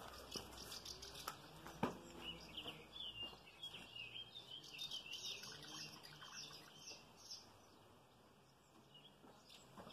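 Faint birdsong: many short, high chirps in quick runs, with a single sharp click just before two seconds in.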